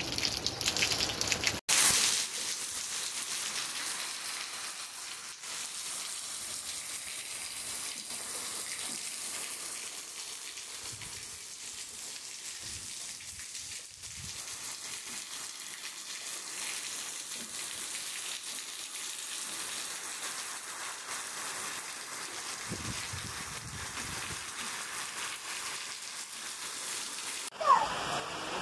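Steady rain falling, an even hiss of drops on wet ground. The sound changes abruptly about two seconds in and again near the end, where some brief higher-pitched sounds come in over the rain.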